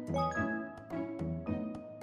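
Light background music with a steady beat about two strokes a second. A few bright, short high notes ring over it in the first half second, a chime for the answer being revealed.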